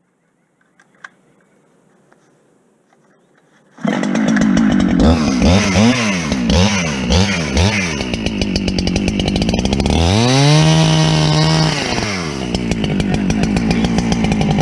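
Husqvarna 395 two-stroke chainsaw starting abruptly about four seconds in, then revved in several short blips. It is held at high revs for about two seconds and drops back to run steadily.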